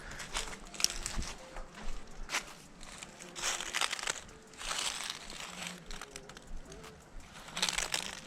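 Irregular rustling and crunching in uneven bursts, like close handling or movement noise.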